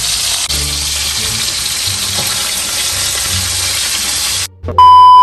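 Bangus (milkfish) frying in hot oil, a steady sizzle that cuts off suddenly about four and a half seconds in. A loud, steady electronic beep follows near the end.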